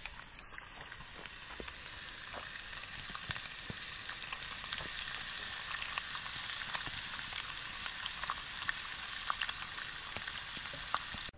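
Skin-on brook trout frying skin-side down in lard in a pan on a campfire grill: a steady sizzle with scattered small pops, growing a little louder over the first few seconds.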